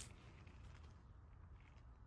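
Near silence: faint room tone with a low hum, in a pause between spoken words.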